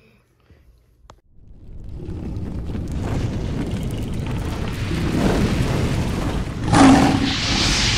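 Sound effect for an animated fire logo: after a near-silent second, a rumble of flames builds over several seconds, with a boom about seven seconds in followed by a lingering hiss.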